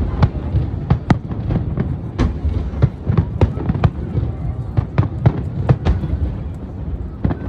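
Fireworks display going off: a rapid, irregular string of sharp bangs and crackles, about three a second, over a low rumble.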